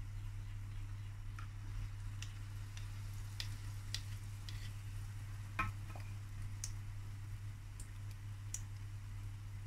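Apple fritter batter frying in sunflower oil in a deep pan, the oil crackling with sparse, irregular pops and ticks over a steady low hum. A louder click a little past halfway comes as spoons drop another portion of batter into the oil.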